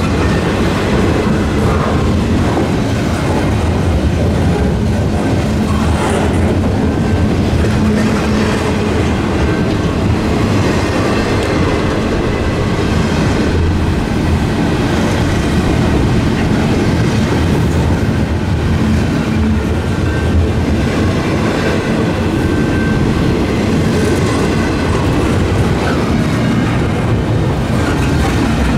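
Double-stack intermodal container train rolling past: loud, steady noise of steel wheels on rail and the well cars rattling, even throughout.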